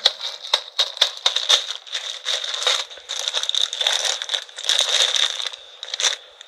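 Cheetos bag crinkling and crackling as it is crushed and handled and its crumbs are shaken out, in dense irregular bursts that die down near the end.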